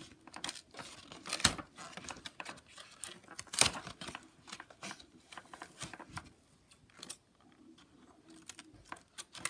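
Cardboard toy packaging and its clear plastic window being pulled and torn open by hand: crinkling, rustling and tearing, with two louder sharp snaps about a second and a half and three and a half seconds in.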